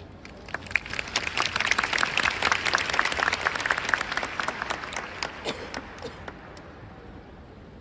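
Audience applauding: the clapping swells about half a second in, then dies away to a few scattered claps by about six seconds.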